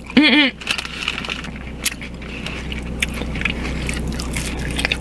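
A short hummed 'mm' at the start, then a person chewing a hard-shell taco close to the microphone, with small clicks and mouth noises.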